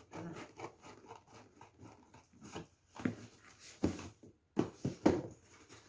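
Handling noises from a cardboard shipping box: a string of small clicks and rustles, then several sharper knocks in the second half.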